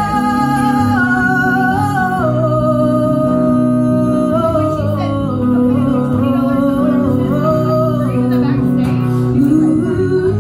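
A woman singing a slow melody of long held notes while strumming an acoustic guitar.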